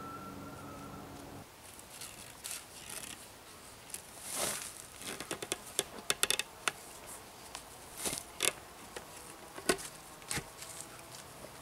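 Scattered handling sounds from logs on a pole frame: light wooden clicks and knocks with short rustles as the logs are shifted and lashed by hand, a few sharper knocks in the second half.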